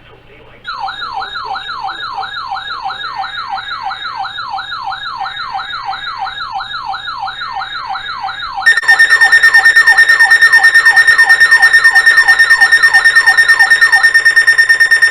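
Electronic siren-like alert sound: a falling pitch sweep repeating about three times a second. About two-thirds of the way in, a much louder steady high alarm tone with a pulsing beat joins it, and both cut off abruptly at the end.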